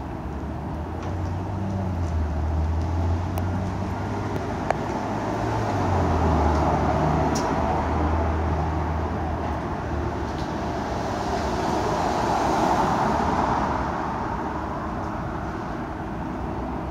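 Cars driving past on a city street. A low engine hum runs through the first half, tyre and road noise swells twice, about six and about twelve seconds in, and there is a brief sharp click about five seconds in.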